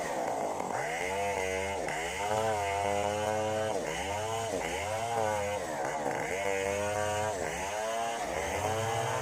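Stihl 070 two-stroke chainsaw cutting through a log lengthwise into a plank. The engine's pitch dips under load and climbs back again and again, about every second or so.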